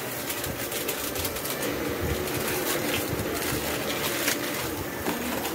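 Aluminium foil crinkling and crackling as it is folded and crumpled by hand around fried fritters.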